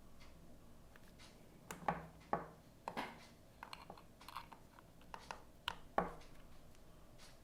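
Mechanical keyboard keystrokes on a Velvet Pro with an aluminium bottom, Gateron X R2 switches and GMK keycaps: about a dozen separate key presses, irregular and unhurried, some with a deeper thud, from about two to six seconds in.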